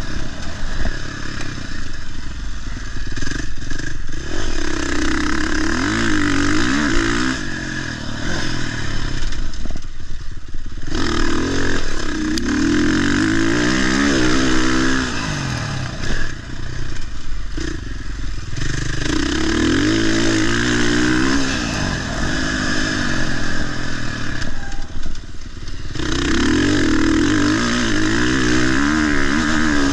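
Motocross bike engine revving hard on and off the throttle, its pitch climbing and falling repeatedly, with brief drop-offs a few times.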